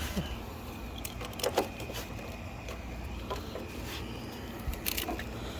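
Handling of a car's wiring harness connectors: a few light clicks and rattles, a couple of them about a second and a half in and a cluster near the end, over a steady low rumble.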